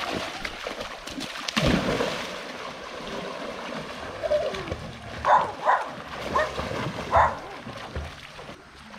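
River water splashing and sloshing, with a louder splash a couple of seconds in. Several short, sharp calls sound in the background past the middle.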